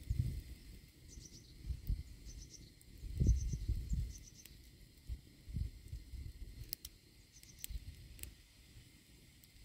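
Outdoor rural ambience: faint, repeated high chirps over irregular low rumbles, the loudest rumble about three seconds in, with a few sharp clicks near the end.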